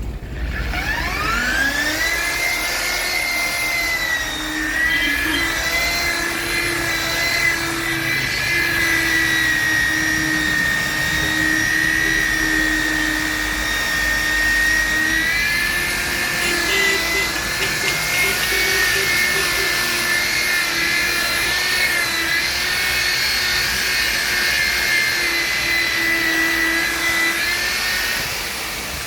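A handheld electric power tool's motor spinning up to speed, running with a steady high whine and small wavers in pitch, then winding down near the end.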